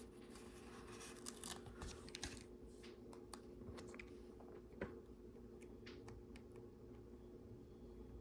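Faint handling of small LEGO pieces and a sticker sheet: scattered light plastic clicks and short peeling and rustling sounds, over a steady low hum.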